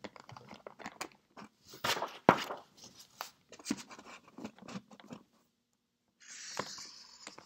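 A marker scratching on paper as a circle is traced around a small flower pot, with paper and pot handling noises and light knocks, then a short steady swish near the end.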